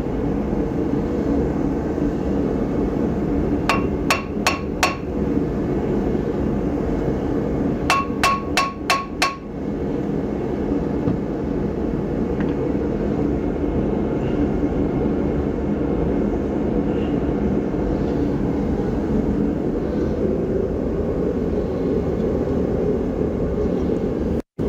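Hammer blows on a rusted-on wheel hub to free it from the steering knuckle: four quick ringing metal strikes, a pause, then five more. A steady low rumble runs underneath.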